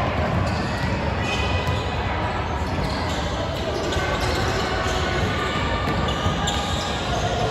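Basketball bouncing a few times on a hardwood gym court at a free throw, over indistinct chatter of voices in a large gym.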